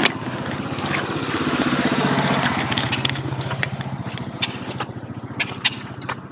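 A motor vehicle's engine passing close by, growing louder about two seconds in and then fading away.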